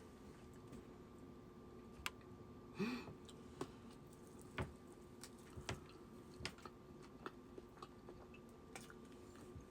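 Faint close-miked chewing and mouth sounds: scattered soft clicks and wet smacks, with a short hum about three seconds in.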